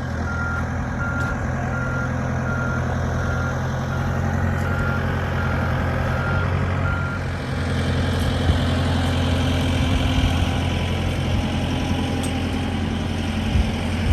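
Boat travel lift's engine running steadily, with its warning alarm beeping about one and a half times a second until about seven seconds in, when the beeping stops.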